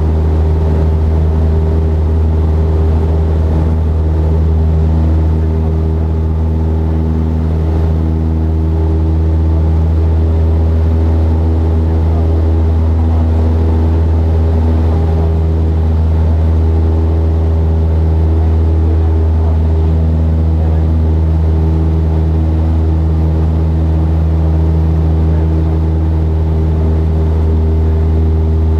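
Cessna 172's piston engine and propeller running at steady power during the climb after takeoff, a deep, unchanging drone heard from inside the cabin.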